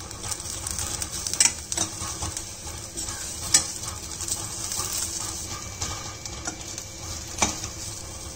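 Sliced onions, ginger and garlic sizzling in oil in a nonstick kadhai as they are stirred with a spatula. A few sharp taps and scrapes of the spatula against the pan stand out above the steady sizzle. They are being sautéed until the garlic and ginger lose their rawness.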